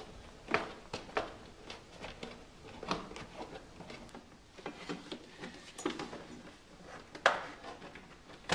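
Irregular clicks and knocks of hand work on an air compressor's casing as its screws are being removed, with the sharpest knock about seven seconds in.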